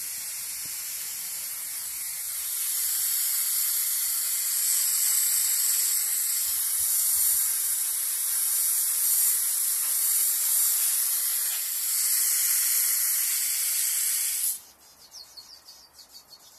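Water spray hissing steadily as it mists the plants, getting louder about two seconds in and cutting off suddenly near the end. Faint bird chirps follow.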